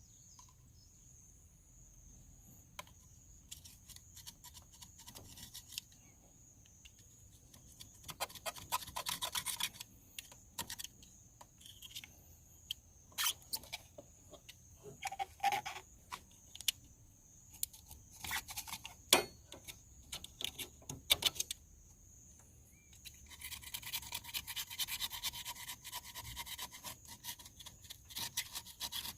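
Hand work on engine parts: scattered clicks and sharp knocks of small tools and parts, then steady scratchy scrubbing or scraping near the end.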